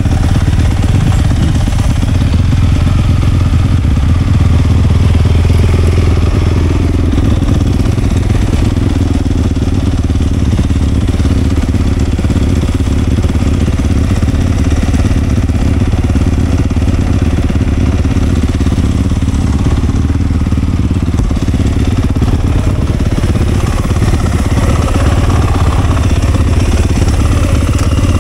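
Dirt bike engine running steadily as the bike is ridden, loud and close to the microphone.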